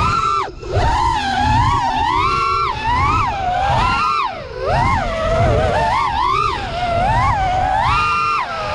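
Brushless motors and props of an FPV racing quadcopter whining, the pitch sweeping up and down constantly with the throttle as it carves through the course. The whine dips sharply twice, about half a second in and about four seconds in, with wind rumbling on the onboard microphone underneath.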